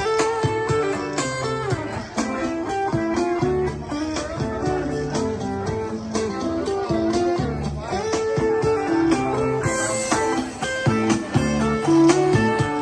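Acoustic guitar played live through a PA speaker: a continuous run of picked notes and strummed chords with no singing.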